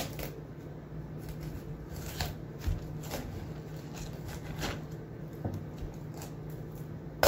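Crisp snapping and rustling as the green leaves are broken off a raw head of cauliflower, a handful of short sharp cracks spread out, the sharpest near the end.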